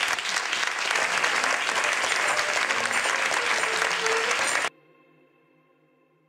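Audience applauding, cut off suddenly near the end, after which only faint steady tones remain.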